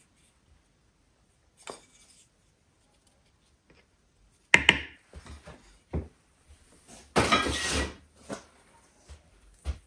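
Kitchen dishes and utensils being handled, with scattered clinks and knocks. The loudest is a quick pair of sharp clinks about halfway through, and a brief noisy scraping stretch follows a little later.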